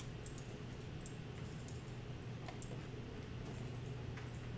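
A few faint computer mouse clicks over a steady low hum.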